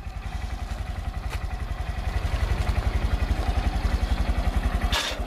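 Motorcycle engine running with a steady low pulse, getting a little louder from about two seconds in as it is worked up a loading ramp. A sharp clack near the end.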